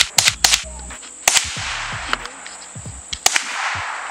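Handgun shots: a quick string of sharp cracks at the start, then single shots about a second in and just over three seconds in, each trailing off in a rolling echo.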